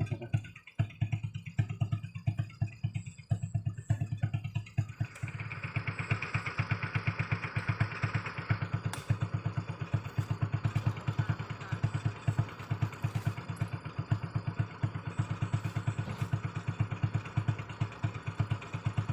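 Single-cylinder Honda Revo 110cc motorcycle engine of a homemade mini truck running under load with a steady, even chug; from about five seconds in to about nine a hissing, whirring layer rises over it.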